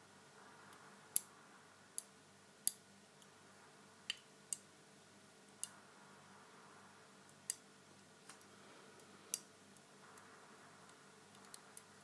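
Lock pick and tension wrench working the five-wafer cylinder of a Lockwood 885 window lock: sharp, irregular metal clicks about once a second, with faint scraping between them, as the wafers are picked. A steady refrigerator hum runs underneath.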